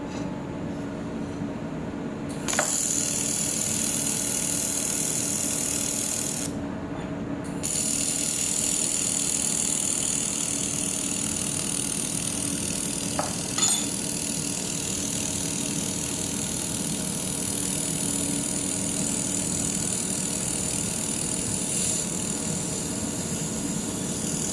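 Air-cooled handheld laser welder with a wire feeder welding: a steady hiss that starts a couple of seconds in, stops for about a second, then runs on, over the machine's steady hum.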